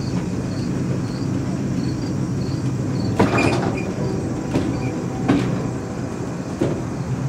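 Fenelon Place Elevator funicular car running up its steep track on the haul cable: a steady low rumble, with four sharp clanks in the second half as it nears the top station.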